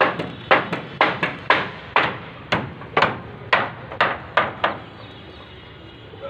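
A series of sharp knocks or blows, about a dozen of them at roughly two to three a second, some coming in quick pairs, that stop about three-quarters of the way through.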